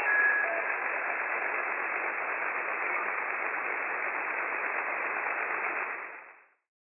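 Steady even hiss of band noise from an Icom IC-7610 receiver tuned to the 6 m band in SSB mode, with no station coming through. The hiss is cut off at top and bottom by the receiver's filter, and it fades out about six seconds in.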